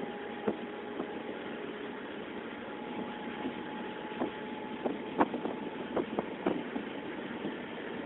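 Diesel-electric multiple unit (DEMU) train running, heard from inside a coach: steady running noise with a faint steady whine, broken by irregular sharp clicks and knocks, the loudest about five seconds in.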